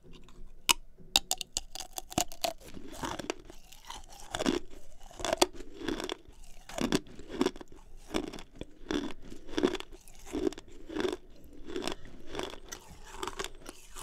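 Close-miked crunching and chewing of four pieces of 34-year-old 1987 Garbage Pail Kids gum, starting with sharp brittle crunches and settling into steady chewing a little more than once a second. The stale gum crumbles to powder instead of turning rubbery.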